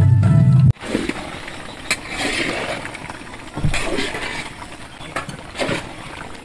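Background music with a heavy bass cuts off abruptly under a second in. Then a long metal spatula stirs and scrapes chunks of goat curry in a large iron wok, giving a few sharp scrapes and clanks over a steady hiss.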